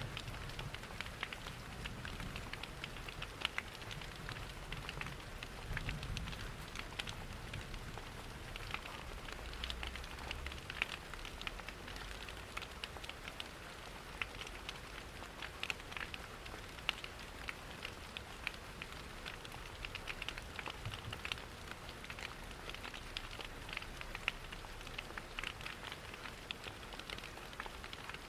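Steady rain patter on a window mixed with a crackling wood fire in a fireplace: a constant hiss full of small sharp ticks and pops. A soft low rumble sits underneath for the first ten seconds or so.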